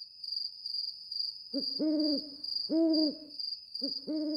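A bird's low hooting calls, several notes in a repeating pattern of a double hoot followed by a single one, over a steady high-pitched insect trill.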